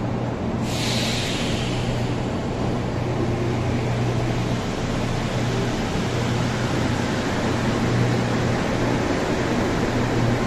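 Concarril NM-79 rubber-tyred metro train pulling out of an underground station. A short burst of air hiss comes just under a second in, then a steady low hum and rolling noise as the train gets under way.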